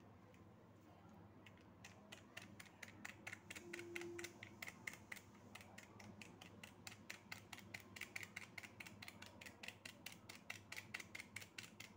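Fast, light clicking of a pin punching holes through aluminium foil stretched over a clay hookah bowl, several pricks a second, starting about a second and a half in.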